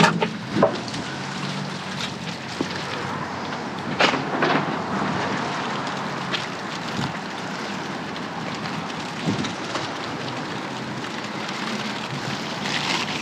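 Steady hissing noise, with a few short knocks and rustles, about four seconds in the loudest.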